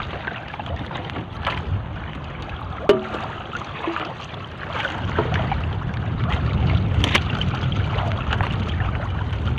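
Wet fishing net being hauled by hand over a boat's gunwale, with water splashing and dripping off it and a few sharp knocks. A low rumble comes up about halfway through.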